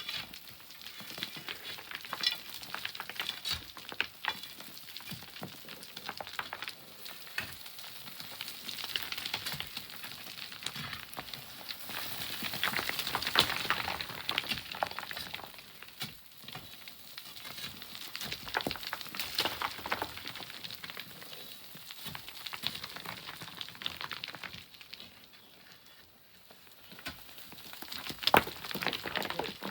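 Sand and pebbles trickling and sliding down, a dense crackle of small stones that swells and fades, loudest about halfway through and again near the end.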